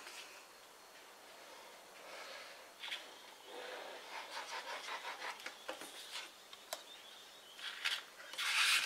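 Cardstock being handled on a craft mat: paper rustling and sliding, with a hand-held adhesive tape runner rolling along the edges of a cardstock layer in the middle, giving light ticks. Near the end comes a louder rustling scrape of paper layers being pressed and slid together.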